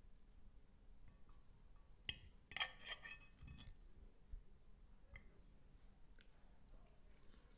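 A metal fork clinking and scraping against a plate while twirling linguine: a few short clinks about two to three seconds in, one faint tick later, otherwise near silence.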